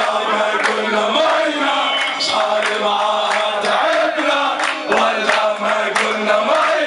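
A crowd of young men chanting a song together, loud and steady, with hands clapping along throughout.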